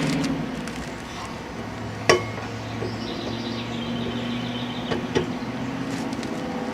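Metal clank of a steel lug wrench on a wheel's lug nuts during tightening: one sharp ringing strike about two seconds in and two lighter clinks near five seconds, over a steady low hum.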